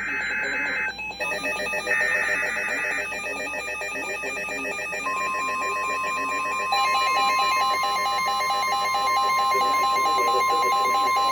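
Emergency Alert System SAME data bursts: two short, buzzy, warbling bursts about a second long each. From about five seconds in comes the steady single-pitch National Weather Service attention tone, which signals that a new warning is about to be read. A fast repeating electronic beeping at several pitches runs underneath.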